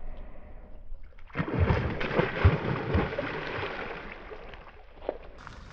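A hooked pike thrashing at the surface: loud splashing with several heavy slaps begins about a second and a half in, then dies away over the next couple of seconds.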